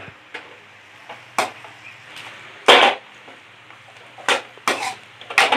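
A spoon or spatula stirring chicken pieces in a frying pan, giving several irregular scrapes and knocks against the pan, the loudest about halfway through, over a low steady sizzle of frying.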